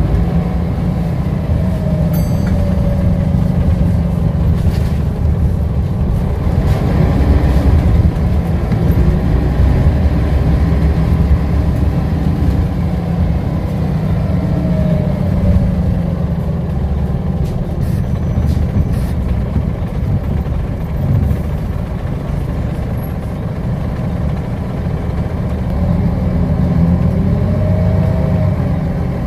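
Scania L94UB single-decker bus's nine-litre five-cylinder diesel and ZF automatic gearbox heard from inside the saloon while under way: a steady low engine rumble, with a faint whine that rises and falls a few times as the bus picks up speed and eases off.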